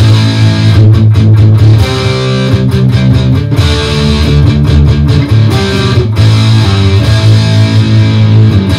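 Electric guitar riff played loud through a Fender Mustang GTX100 modeling amp, with a Ranger boost, the BB15 High amp model and a 7-band graphic EQ set for a scooped metal tone with the bass turned well up. Low notes are picked in a steady run with many quick attacks.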